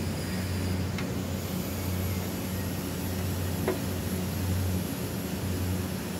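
Steady low mechanical hum, with a faint click about a second in and another just past the middle.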